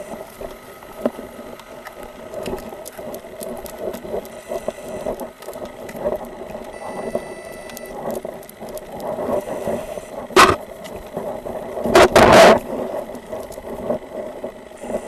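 Body-worn camera picking up the rustle and footsteps of walking, with a short loud burst of noise about ten seconds in and a longer one around twelve seconds in.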